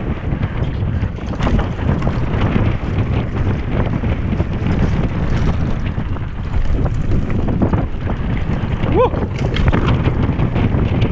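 Wind buffeting the microphone over the rumble and rattle of a mountain bike rolling fast down a dirt trail, with knocks from bumps in the track. A short rising squeak about nine seconds in.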